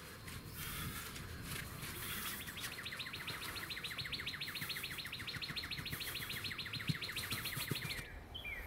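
Garden rake scraping and tapping in loose soil, then a rapid, evenly repeating high trill that comes in after a couple of seconds, runs steadily and cuts off abruptly near the end.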